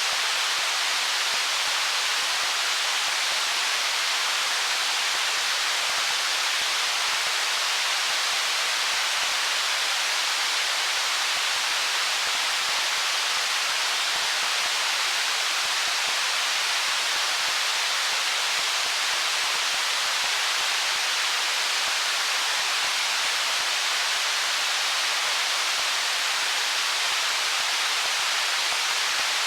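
Stream water running between rocks: a steady, even rush, mostly hiss with little deep rumble.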